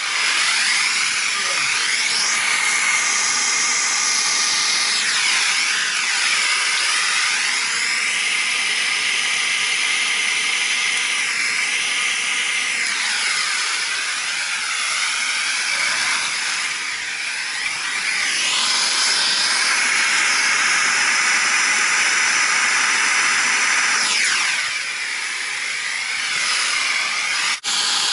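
Steady loud rushing hiss, like air or machinery noise, whose tone sweeps slowly up and down every few seconds. It breaks off for a moment near the end.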